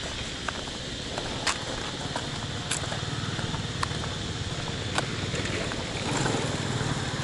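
Motorbike engine running some way off, its rumble swelling about six seconds in. Over it, sharp taps about every second and a quarter from the walker's footsteps, and a steady high hiss.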